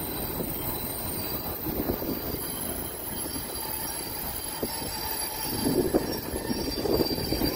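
Vintage railway passenger carriages rolling slowly past, a steady rumble of wheels on the rails with a thin high wheel squeal. A few louder knocks come about six and seven seconds in.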